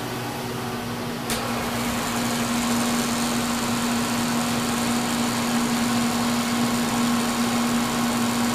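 Kearney & Trecker horizontal milling machine running, its spindle turning a facing cutter with a steady hum. A sharp click about a second in, after which the running gets a little louder and stays steady.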